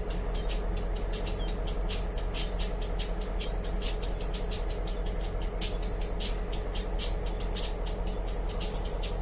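Union Pacific diesel-electric locomotive's engine idling with a steady low hum, under a rapid, constant crackle of sharp high-pitched ticks.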